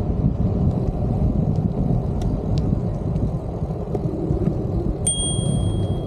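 Steady wind and road rumble from riding along a paved path. About five seconds in, a bicycle bell is rung once and its high ring hangs on.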